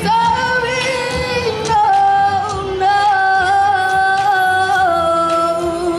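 A woman singing through a handheld microphone, holding long notes that step slowly downward, with slight wavers in pitch.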